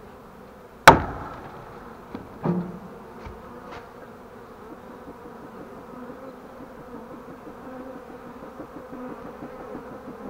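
A wooden stick strikes the fence pole with one loud sharp knock about a second in and a smaller knock a second and a half later, to jar the honeybee swarm loose. The swarm then buzzes steadily, a little louder toward the end.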